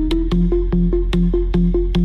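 Bass-boosted electronic dance music: a constant deep sub-bass under a fast, even pattern of sharp percussive hits and short synth notes bouncing between a higher and a lower pitch, about five a second.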